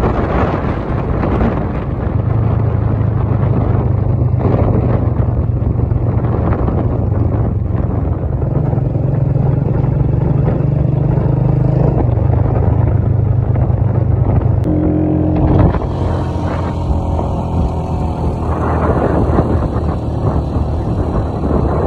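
A vehicle engine running on the move, with road and wind noise over it; the engine pitch steps up about eight seconds in and drops back a few seconds later, and the sound changes abruptly about two-thirds of the way through.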